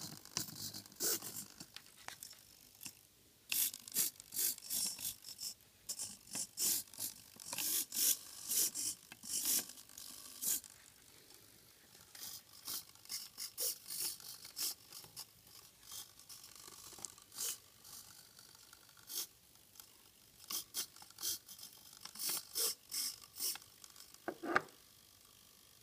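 Small hobby servo motors in an animatronic eyeball rig whirring in many quick, irregular bursts as they move the eyes, with one louder click near the end.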